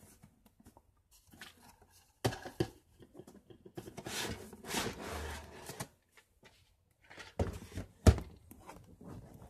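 Vitamin bottles and a small shelf stand being moved about in a cupboard: scattered knocks and clatter, some rustling and sliding around the middle, and the loudest sharp knock about eight seconds in, as the stand's loose leg comes out.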